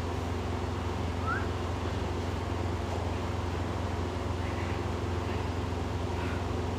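Steady low mechanical hum, even throughout, as from an engine or machine running.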